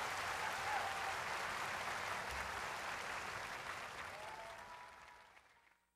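Crowd applauding, with a faint call or two over it. It fades out steadily to silence near the end.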